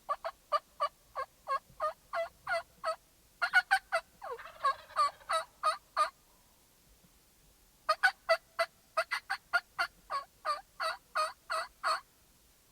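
Turkey yelping: three runs of short, evenly spaced notes, about three a second, with a faster, scratchier stretch a few seconds in.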